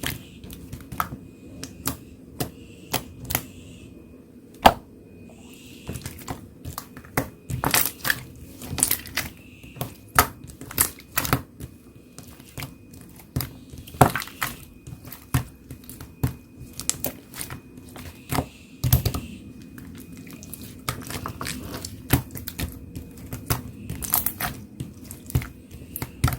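Irregular sharp clicks, taps and a little crinkling, like desk handling or typing. Under them runs a faint steady hum with a thin high whine from a vacuum cleaner running in the background.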